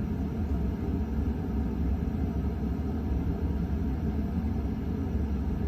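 KDK Royalaire 52-inch ceiling fan running steadily on medium speed, a low, even sound of motor and moving air.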